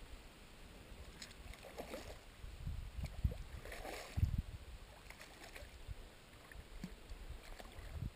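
A hooked small common carp thrashing and splashing at the water's surface as it is brought over the landing net, in irregular bursts, the loudest about four seconds in.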